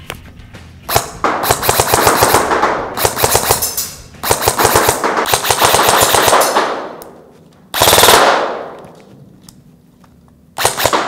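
ARES Amoeba AM-013 electric airsoft rifle (AEG) firing on full auto: a single shot about a second in, then several rapid-fire bursts of one to two and a half seconds each with short pauses between them, the last starting near the end.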